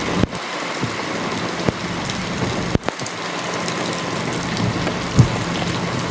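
Steady rain falling, with a low steady hum underneath and a few short knocks.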